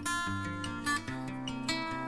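Background music: an acoustic guitar tune with plucked notes changing every fraction of a second.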